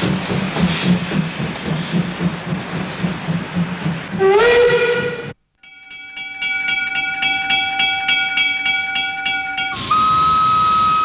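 DB Class 50 steam locomotive chuffing rhythmically as it moves under steam, its steam whistle gliding up and sounding briefly about four seconds in. After a sudden cut, a steady chord of several tones runs with regular ticks about three to four times a second. Near the end a steam whistle starts and holds on one note.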